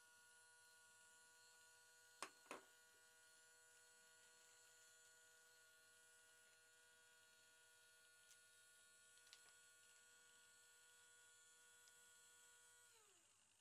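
Faint, steady hum of a small electric motor, such as a display turntable turning the stone, which winds down in pitch and stops near the end. Two sharp clicks come about two seconds in.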